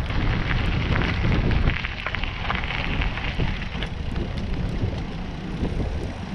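Wind buffeting the microphone over the crunch and rattle of bicycle tyres rolling on a gravel trail, with scattered small clicks; a little quieter from about two seconds in.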